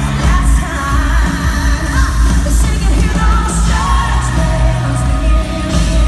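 Live country-pop band playing in an arena, with a female lead singer holding sung lines over heavy bass and drums.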